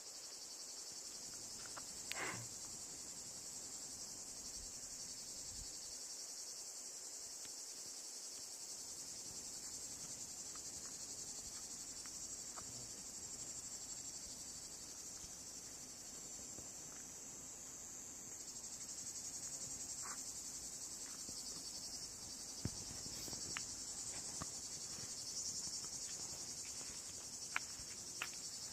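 Steady, high-pitched chorus of insects chirring, with a few faint clicks scattered through it.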